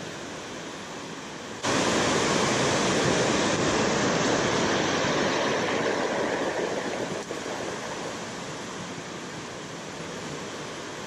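Water rushing over a concrete spillway and churning into white water below, a steady rushing noise that jumps suddenly louder about two seconds in and eases off again over the second half.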